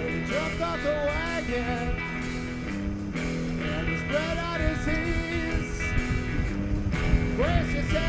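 Background rock music with guitar: held low chords under a gliding lead melody.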